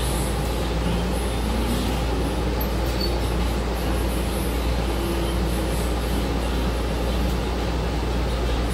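Cabin noise inside a city transit bus on the move: a steady low rumble from the engine and drivetrain with a haze of road noise.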